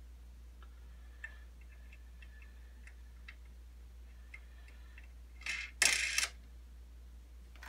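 Parts of a miter saw stand being handled: a few faint light clicks and taps, then a louder scraping clatter about five and a half seconds in that lasts under a second.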